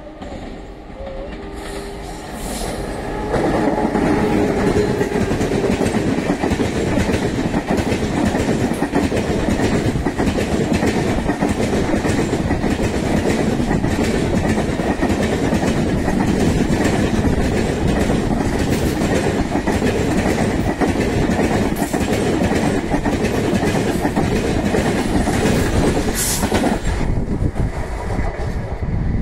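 Electric-locomotive-hauled express train of LHB coaches passing close at speed. It swells as the locomotive arrives, then about three seconds in becomes a loud, steady rush with a rapid clatter of wheels over the rail joints as the coaches go by.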